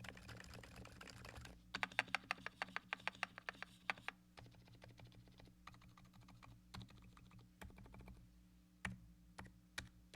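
Typing on a Keychron Q2 mechanical keyboard with dampened Silent Alpaca linear switches, taped and filled with polyfill: a quick run of keystrokes, a louder spell of presses from about two to four seconds in, then scattered key presses.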